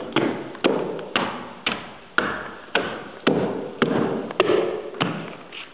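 Footsteps climbing newly built stairs: a steady run of thuds about two a second, each ringing briefly.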